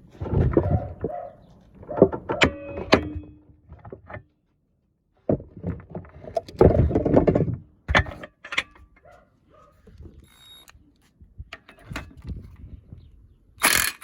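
Hand tools being handled and set down: scattered metal clunks, knocks and rattles, cut off by two abrupt silences.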